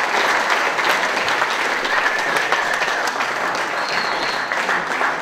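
Audience applauding, a dense steady clatter of many hands clapping that slowly eases off.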